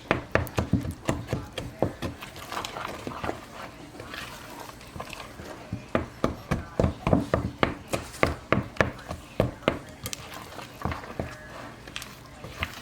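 A spoon knocking and scraping against a mixing bowl while stirring thick muffin batter: quick, even knocks, about three or four a second, easing into softer scraping between about two and five seconds in, then knocking again.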